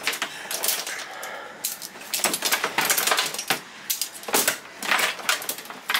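Hands rummaging through a plastic storage tote of extension cords and tools: hard objects and a long rod clink, knock and rattle against each other and the plastic in quick irregular bursts.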